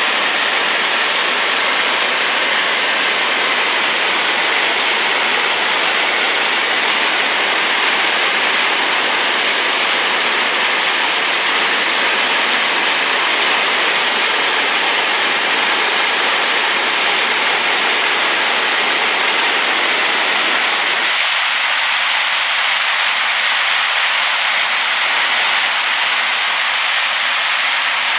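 Rain-swollen waterfall: a loud, steady, even rush of falling water. About three-quarters of the way through, the deeper part of the rush drops away abruptly.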